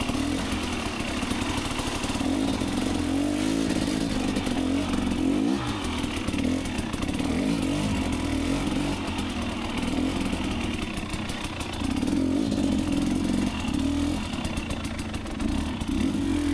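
Two-stroke dirt bike engine running and revving up and down continuously, the pitch rising and falling as the throttle is worked.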